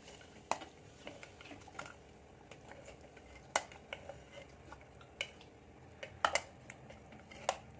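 Steel ladle clinking against the inside of an aluminium pressure cooker while potato and pea curry is stirred. About seven sharp clinks come at uneven intervals.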